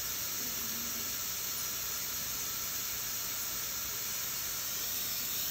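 Hand-held hot-air plastic welding gun running, a steady hiss of hot air blowing from its nozzle as it heats and softens the plastic.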